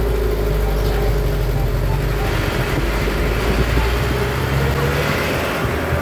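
Old Mitsubishi Colt diesel truck's engine running steadily, a constant low rumble with a steady hum over it.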